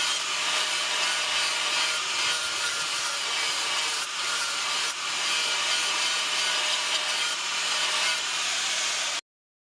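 A power tool grinding steadily, with a continuous abrasive rasp that cuts off abruptly near the end.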